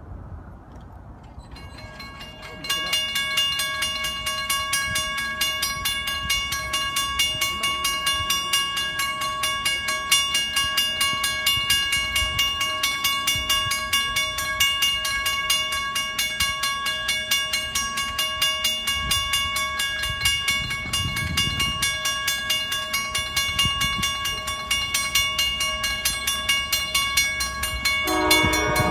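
Railroad grade-crossing warning bells start about two to three seconds in as the crossing signals activate and the gates come down, then ring on steadily in a fast, even pulse. Near the end an approaching train's horn begins to sound.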